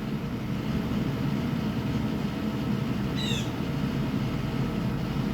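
Steady low hum, with one brief, high bird call of a few quick notes about three seconds in.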